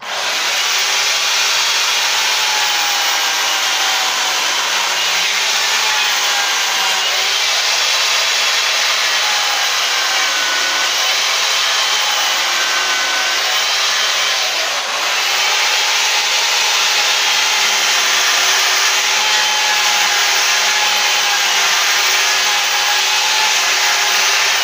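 Stihl electric chainsaw running and cutting into a wooden log, its motor pitch wavering as the chain bites into the wood. It dips briefly about halfway through and cuts off abruptly at the end.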